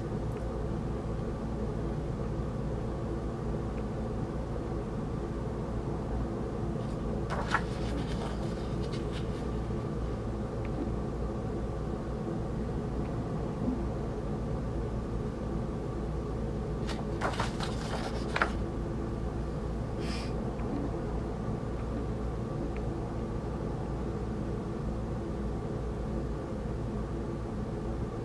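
Steady room hum at several fixed pitches, with a few brief rustles and clicks from a vinyl record's sleeves being handled: once about seven seconds in, and a quick cluster around seventeen to eighteen seconds.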